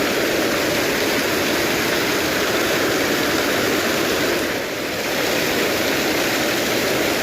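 River water rushing steadily, a loud, even hiss of flowing water.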